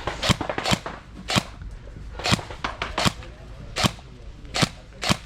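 Airsoft gun firing single shots, about eight sharp cracks spaced unevenly, roughly one every half second to second.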